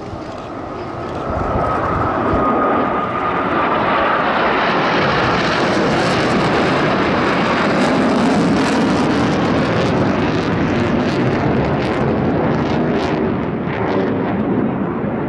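Blue Angels F/A-18 Super Hornet jet flying past. A steady high whine comes first, then loud jet noise with a crackle through the middle, easing off near the end.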